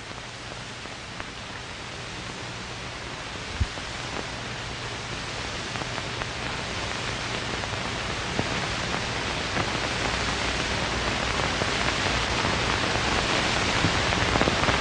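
Steady static hiss with a faint low hum, growing gradually louder, with one sharp click about three and a half seconds in.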